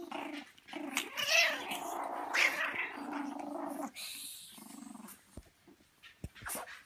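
Young puppies growling and whining, with two higher yelps in the first few seconds; the sounds die down after about four seconds.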